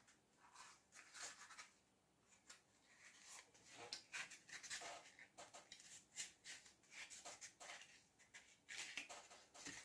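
Faint, scattered rubbing and rustling of fingers handling and pressing an EVA foam flower on a wire stem.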